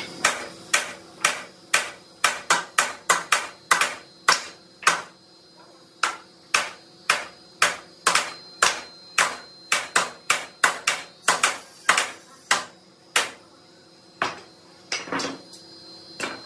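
Repeated hammer blows on a wooden mulberry door frame as its joints are knocked together, about two sharp strikes a second. There is a brief pause about five seconds in, and a longer gap near the end before a last couple of blows.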